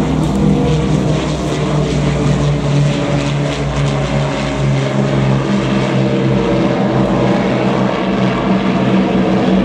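An Avro Lancaster bomber's four propeller engines drone steadily as it flies past.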